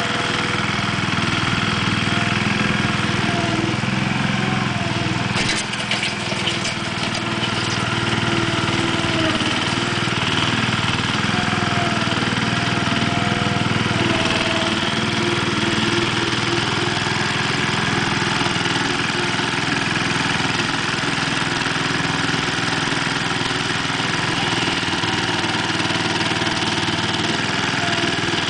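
Case 1816 mini skid loader's 16 hp Tecumseh engine running steadily, with a short burst of clicking and rattling about six seconds in.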